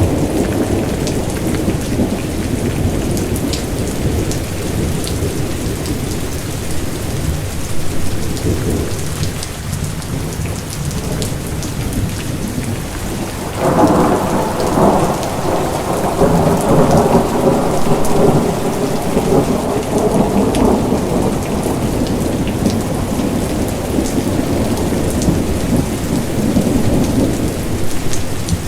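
Steady rain falling with rolling thunder. A louder rumble sets in suddenly about halfway through and fades over several seconds.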